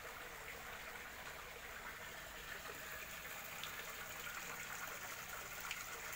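A small stream of water pouring into a pond, a steady, faint splashing.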